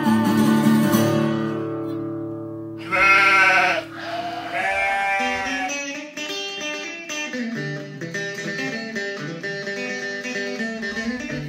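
An acoustic guitar chord rings out and fades, then a sheep bleats twice, the first about three seconds in and loud, the second fainter. From about six seconds in, light plucked acoustic guitar music plays.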